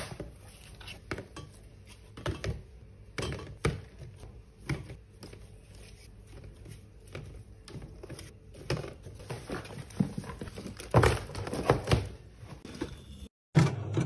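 Small paper milk cartons being lifted out of a cardboard case and set down one by one in a clear plastic organizer bin: a run of light taps and thunks with some cardboard rustling, busier and louder in the last few seconds, then a brief cut to silence near the end.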